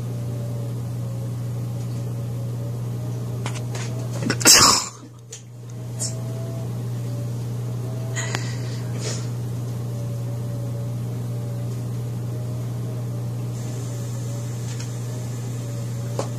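A steady low hum with a wavering higher tone. About four and a half seconds in comes one sudden, loud, brief noisy burst, followed by a few faint clicks.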